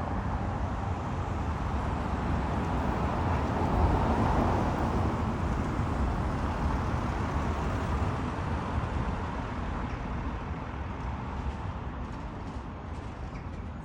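Outdoor road-traffic noise: a vehicle's tyre and engine noise swells to its loudest about four seconds in, then slowly fades.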